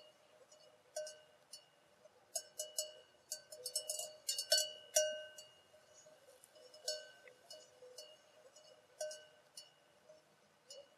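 Metal livestock bells clanking irregularly, each strike ringing briefly; a dense cluster of clanks comes about a third of the way in, with single clanks later on.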